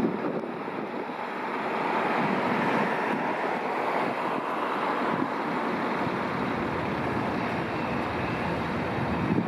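Steady rushing noise of vehicle traffic on a street, even and without a siren.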